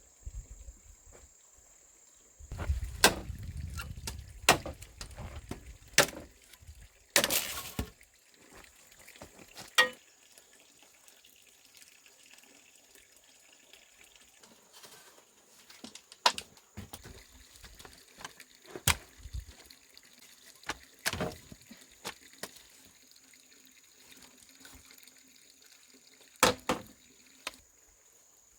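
Scattered knocks and clatters with water splashing and dripping, including a short splashy burst about seven seconds in, over a faint steady high-pitched tone.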